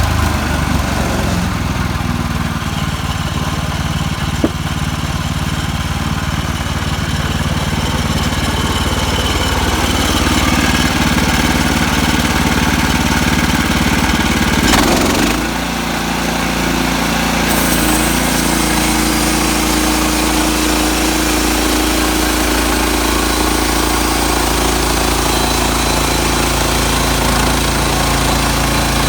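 HM130 Max portable bandsaw sawmill running, its gas engine driving the band blade through a log. There is a short knock about four seconds in, and the engine's note changes about halfway through.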